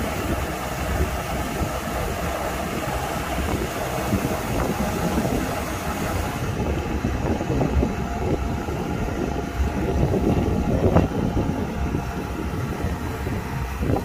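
Kubota DC105X combine harvester's diesel engine running steadily. The high hiss above it drops away about halfway through.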